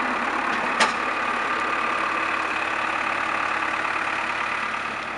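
Komatsu PC71-7 excavator's diesel engine idling steadily, with one sharp click about a second in.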